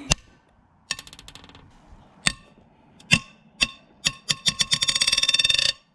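Ratchet wrench loosening the head bolts on a BMW N54 cylinder head: several single sharp snaps as the tight bolts break loose, and two runs of rapid ratchet clicking, the longer and louder one near the end.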